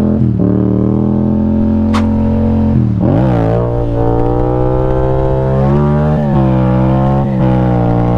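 Yamaha motorcycle engine pulling hard under acceleration, its pitch climbing through each gear and dropping briefly at three quick upshifts, about three seconds apart. A brief thin rising chirp sounds about two seconds in.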